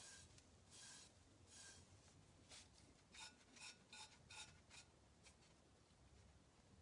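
Faint, short strokes of a wide paintbrush brushing loose excess off the dry spray-painted surface of a cup, about nine light swishes that stop about five seconds in.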